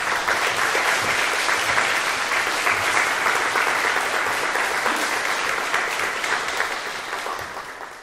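Audience applauding: dense, steady clapping from a roomful of listeners that fades away near the end.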